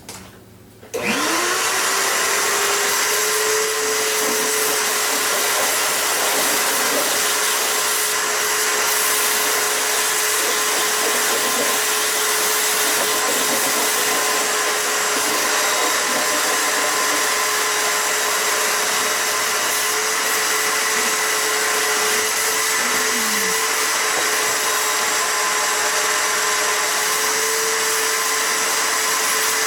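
Shop vacuum switched on about a second in, its motor spinning up with a rising whine and then running steadily while sucking up sawdust.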